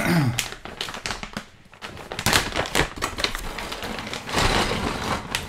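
Plastic parts bag crinkling and rustling as it is handled and opened, with hard resin model-kit parts clicking against each other inside, in a run of irregular clicks with two louder rustling spells.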